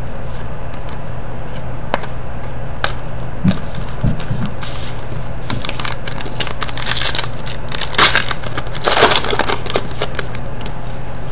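Foil wrapper of a hockey trading card pack crinkling and tearing as it is ripped open by hand, loudest in the second half, after a few light clicks of cards being handled. A steady low hum runs underneath.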